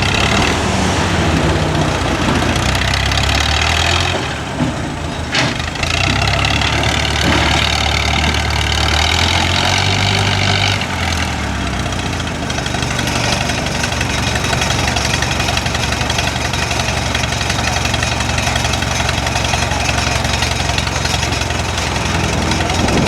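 Heavy diesel engine of a truck or bulldozer running steadily, its note dipping and changing pitch a couple of times, with one sharp knock about five seconds in.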